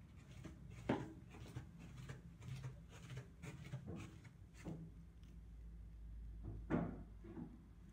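Soft footsteps and handling scuffs of someone walking with a phone on carpet, with two louder knocks, one about a second in and one near the end, over a faint low hum.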